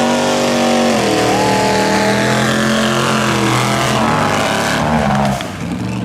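Pickup truck engine held at high revs during a burnout, its rear tires spinning on asphalt. The engine note shifts in pitch, then eases off a little past five seconds in.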